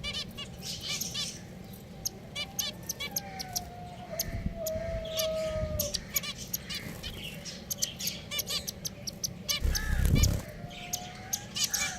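Pet finches chirping, many short calls following each other rapidly and overlapping, with a dull low bump about ten seconds in.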